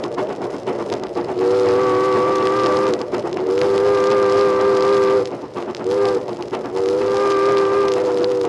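Steam-hauled passenger train running at speed with a fast steady rattle, its steam whistle sounding several notes at once in two long blasts, a short one, then a long one: the long-long-short-long grade-crossing signal. Heard from a 1948 78 rpm record.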